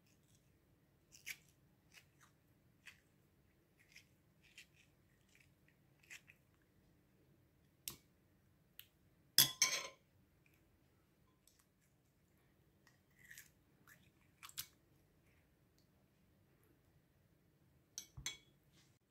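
Metal teaspoon scooping the flesh out of tomatoes, with scattered soft clicks and scrapes. About nine seconds in, a louder clatter comes as the spoon scrapes pulp off against the ceramic dish, and a few more clicks follow near the end.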